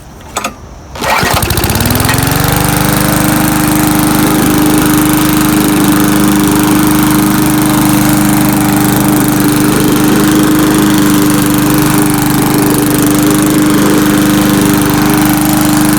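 Murray Classic push mower's small gas engine pull-started: a brief pull, then the engine catches about a second in, rises to speed and runs steadily. It now runs normally on fresh gas after the bad gas was cleared out.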